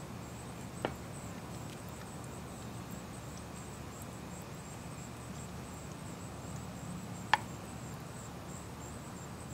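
Quiet outdoor background with a low steady hum and faint high insect chirring. Two light clicks come through it, a sharper one about seven seconds in, from a wooden serving spoon knocking against the dishes as mushroom sauce is spooned onto a plated steak.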